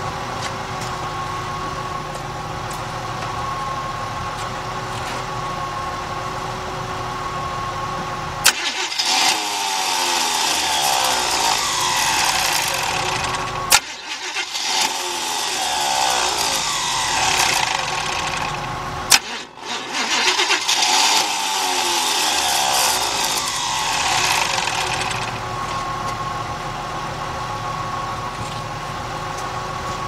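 Starter motor of a 1981 Chevy van cranking the engine three times, each crank lasting about five seconds and starting with a sharp click, with a loud whirring, wavering-pitched noise from the starter that the uploader takes as a sure sign of a failing starter.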